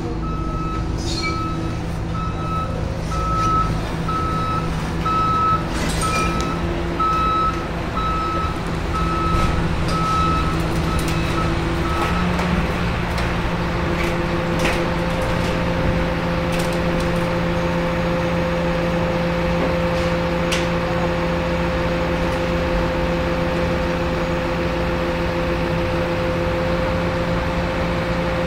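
Excavator's diesel engine running steadily while it lifts and swings a slung load, with its backup alarm beeping about once a second until roughly halfway through; soon after the beeping stops, a steady higher whine joins the engine.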